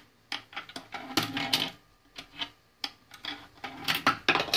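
Electronic coin acceptor clicking and rattling as a half-pound coin is fed into it and passes through, in several short bursts of clicks.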